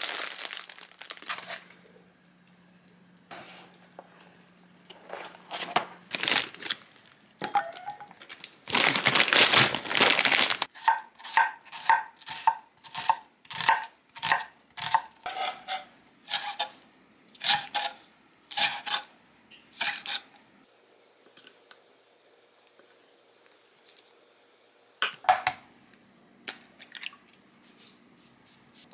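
Plastic instant-noodle packet crinkling, then a long rustling tear as it is opened. A kitchen knife then slices an onion on a wooden cutting board in a run of regular strokes, about two a second. A single sharp knock follows about 25 seconds in.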